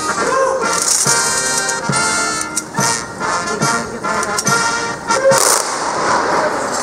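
Military band playing a march: sustained wind-instrument chords over a steady drum and cymbal beat of about two strokes a second.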